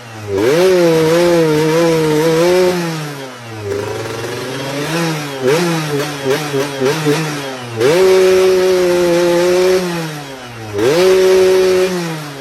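Underbone motorcycle engine with a raspy, snoring exhaust, revved up and held at a steady pitch, then easing off a few seconds in. Several quick throttle blips follow in the middle, and then two more climbs to a steady high note, each falling away again.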